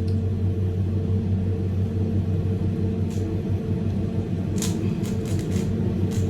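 Steady low hum of a Ferris wheel cabin's air conditioner running close by, with a few quick clicks of a Megaminx puzzle being turned about three seconds in and again near the end.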